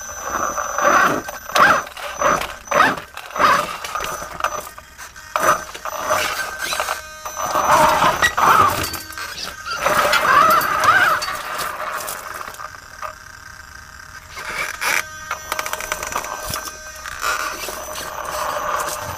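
Radio-controlled inspection rover driving over gravel: its electric drive whines, wavering up and down in pitch as the throttle changes, with scraping and crunching from the tyres. The noise drops away for a couple of seconds past the middle, then picks up again.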